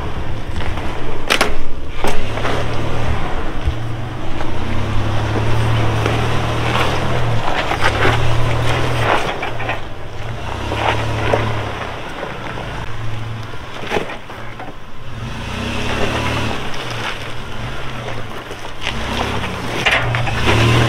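Toyota 4Runner's engine running at low revs as it crawls up a rock ledge, the throttle swelling and easing every second or two, with a few sharp cracks and crunches of the tyres on rock.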